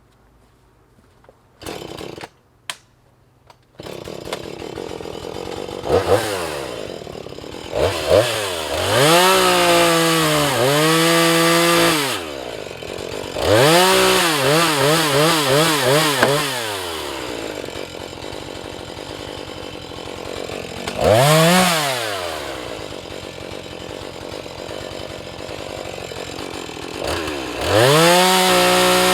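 Husqvarna 435 two-stroke chainsaw starting about four seconds in, idling, then revved up and down again and again as it cuts into a sycamore log, its pitch sagging under load in the cut, and running at full throttle again near the end.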